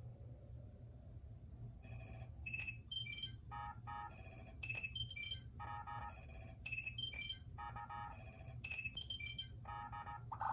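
Sci-fi computer sound effects from the animated status display: a rapid, irregular series of short electronic beeps and chirps at several different pitches, starting about two seconds in, over a steady low hum.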